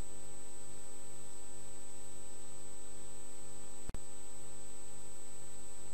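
Steady electrical hum and hiss with a thin high whine, and a low buzz pulsing on and off about twice a second. A brief click comes about four seconds in.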